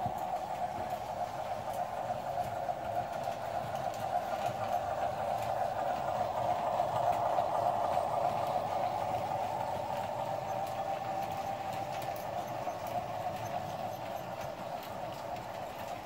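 S-gauge FlyerChief Baldwin switcher and its train of freight cars running on model track, a steady hum of motor and wheels that grows louder as the locomotive passes close, peaking about halfway through, then fades as the caboose goes by.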